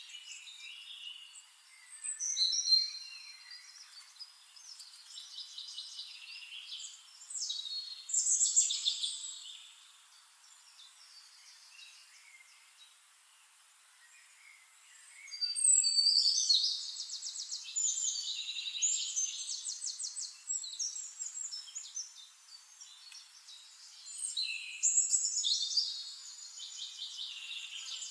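Songbirds singing in bouts of high, rapid trills and whistled phrases, with a quieter lull in the middle.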